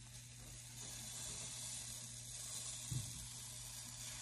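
Pancake batter sizzling in a hot frying pan, a steady hiss that grows louder about a second in.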